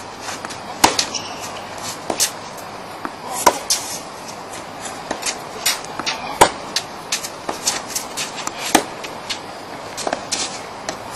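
Tennis balls struck with racquets during a rally: a sharp hit every two to three seconds, with fainter knocks and bounces in between.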